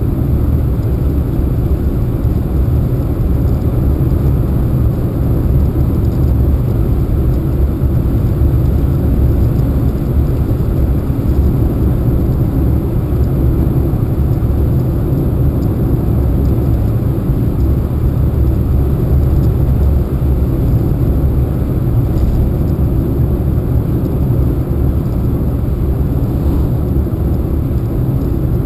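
Steady low rumble of a car driving along an open road, tyre and engine noise heard from inside the cabin.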